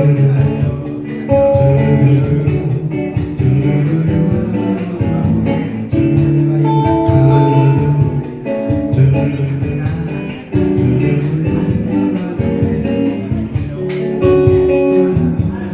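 Live band music: an instrumental passage led by guitar, with a steady bass line under held chords.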